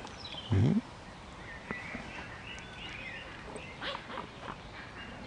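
A single short, low bark-like animal call about half a second in, over a faint outdoor background with a few light chirps.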